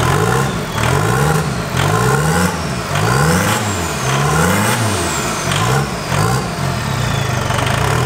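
Compound twin-turbo 2.0 L TDI diesel engine in a VW Beetle race car being revved again and again from idle, about seven quick blips roughly a second apart, its pitch rising and dropping with each one.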